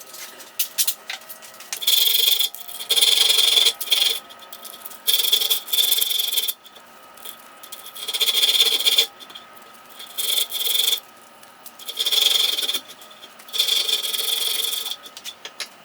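Hand abrasion strokes on the steel of the pincers: about eight separate scraping strokes, each roughly a second long, with short pauses between them.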